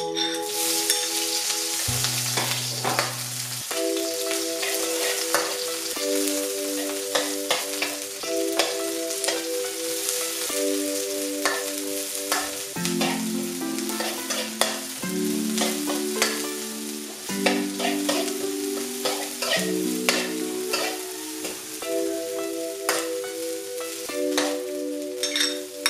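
Food sizzling in hot oil in a pan while being stirred, with a utensil clicking and scraping against the pan. A melody of keyboard-like notes plays over it.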